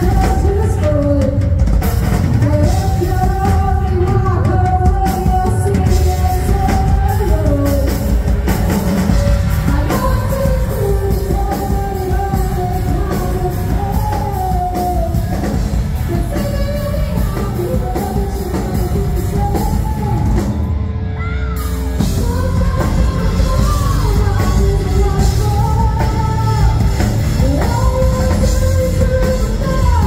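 Live rock band playing: a lead singer sings the melody over electric guitar, bass guitar and drum kit. About two-thirds of the way through, the band briefly drops back for about a second.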